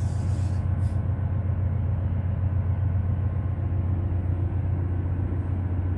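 Steady low machinery hum of a ship's cargo control room, a constant drone from the vessel's running plant with no changes or distinct events.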